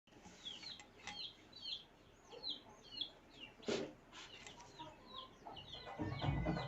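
Birds chirping, short high calls about twice a second, fairly faint, with one sharper click partway through; music starts near the end.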